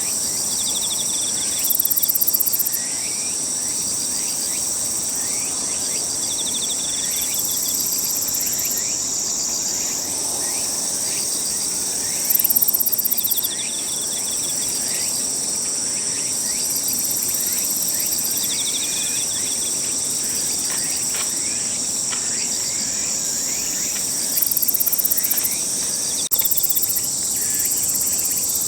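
Himegisu katydid (Eobiana engelhardti subtilis) singing its shiririri song: very high, buzzy trills about a second long, repeated several times. Under them runs a steady high drone of other insects, and there are small faint chirps.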